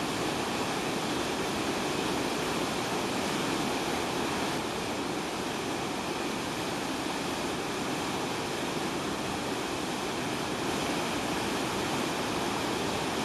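Fast-flowing river rushing over rocks: a steady, even rush of water with no breaks.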